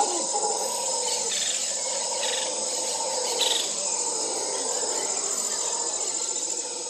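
Outdoor nature ambience: steady high-pitched insect chirring, with a few short bird chirps in the first half.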